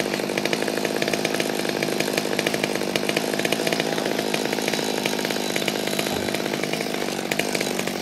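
Chainsaw running steadily at a fairly constant pitch, neither revving up nor dying down.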